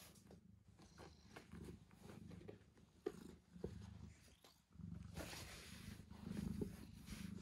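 A cat purring close by, a faint low pulsing that dips briefly and comes back stronger near the end. Soft rustles and a couple of light knocks, about three seconds in, come from the cat squirming and playing on the carpet.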